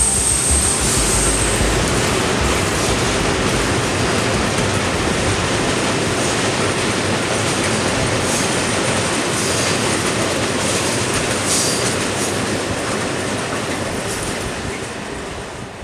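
Freight train of open wagons rolling past, a steady rumble of wheels on the track with a few brief, faint high squeals. It fades near the end as the last wagons go by.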